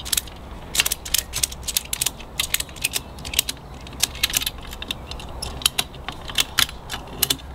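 A ratchet strap being cranked tight by hand: the pawl clicks in quick runs of sharp clicks, with short pauses between strokes of the handle, as the strap is tensioned.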